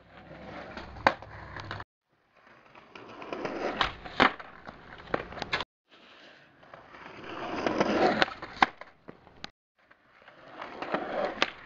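Skateboard wheels rolling on a concrete sidewalk, the rumble building as the rider comes closer, with sharp clacks of the board striking the concrete. The sound cuts off abruptly several times between short takes.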